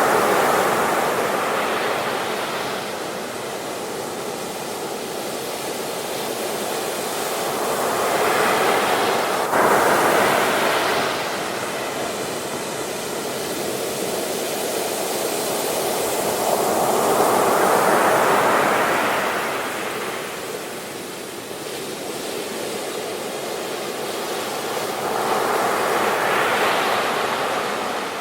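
Sea waves breaking on the shore, surging and falling away about four times, roughly every eight seconds, with a sudden crash about nine and a half seconds in.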